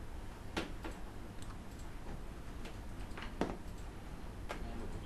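A few scattered sharp clicks, about four, from computer input at a desk, over a steady low hum.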